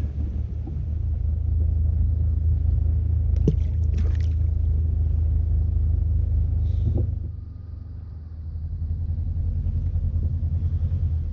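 A low, steady motor rumble with a fine even pulse, typical of a boat engine running close by; it eases off just past halfway and builds again. A few light knocks sound about three and a half, four and seven seconds in.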